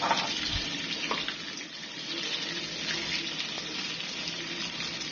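Quartered onions and green capsicum sizzling steadily in hot oil, stirred with a wooden spatula that gives a few light knocks and scrapes against the pan, the first a moment in and another about a second in. The onions are being fried gently, only until translucent.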